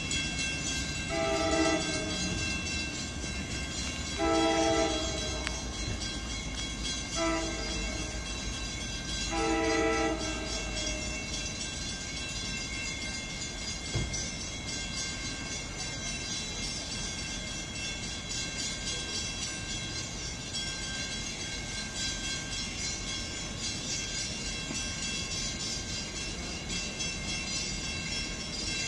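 An approaching freight locomotive's multi-note air horn sounds four blasts, long, long, short, long: the standard grade-crossing warning. Under and after it runs the steady low rumble of the slow-moving train.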